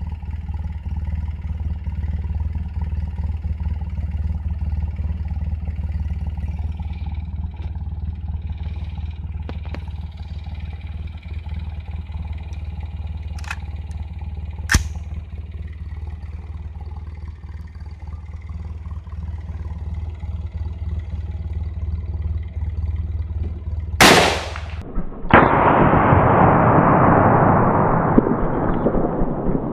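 Anderson Arms AR-15 fires a single .223 shot: one very loud, sharp crack over a steady low rumble. About a second later comes another sharp bang, then a loud rushing noise that slowly fades.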